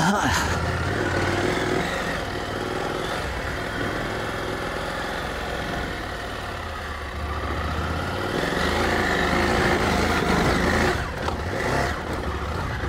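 KTM 890 Adventure R's parallel-twin engine running as the bike is ridden at low speed on gravel, the throttle opening so it grows louder about eight seconds in and easing off again around eleven seconds.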